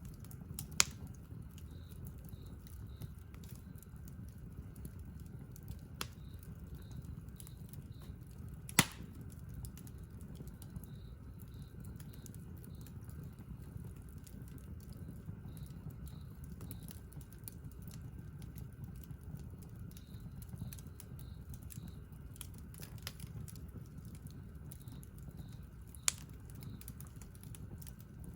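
Wood campfire burning with a steady low rumble and a light, continuous crackle. Sharp pops of the burning wood stand out about a second in and at about nine seconds, with smaller ones at six seconds and near the end.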